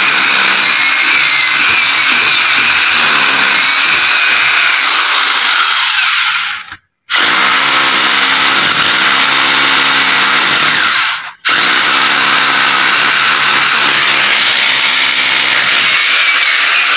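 Corded electric drill boring down into a cement roof at the foot of a steel solar panel stand, running steadily and stopping twice for a moment, about seven and eleven seconds in.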